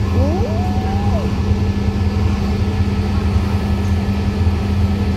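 Diesel locomotive engines running at idle, a steady low drone.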